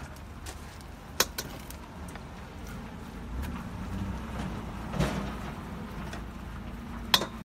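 Metal cooking utensil clinking against a pan, two sharp clicks about a second in and near the end, over a steady low rumble.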